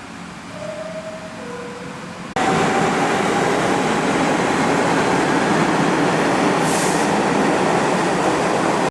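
R62 subway car's door chime sounding two descending tones. About two and a half seconds in, it gives way abruptly to the loud steady running noise of the subway train, with a brief high hiss near the seven-second mark.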